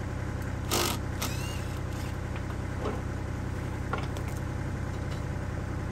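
A machine running with a steady low hum, with a short burst of noise about a second in, a brief rising whine just after it, and a few light knocks.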